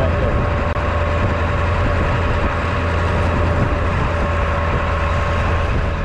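Truck engine running steadily, heard from inside the cab: a constant low hum with a faint steady whine over it.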